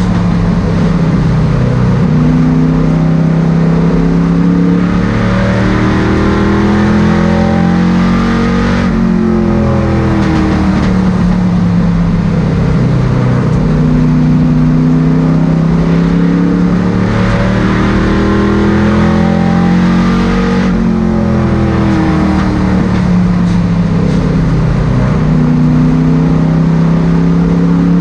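Limited Late Model stock car's engine at race pace, heard from inside the cockpit. Its pitch climbs and falls again and again as the car accelerates and lifts around the oval, with sharp changes in the note about 9 and 21 seconds in.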